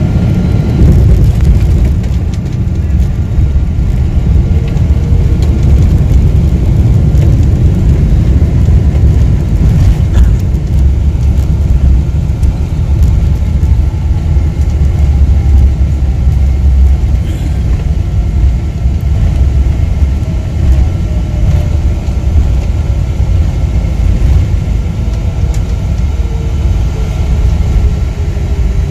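Cabin noise of a Boeing 777-200 rolling along the runway: a heavy, steady rumble from the engines and wheels, with a steady engine tone and a fainter whine that falls slowly in pitch.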